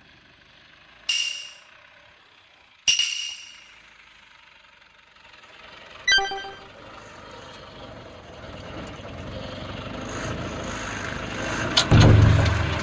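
Two sharp metallic clanks that ring briefly, a third ringing clank a few seconds later, then a tractor's engine noise building up and growing loudest near the end.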